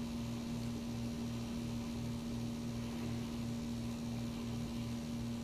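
Steady electrical hum, a low mains-type drone, with a lower layer pulsing evenly a couple of times a second and a faint hiss over it.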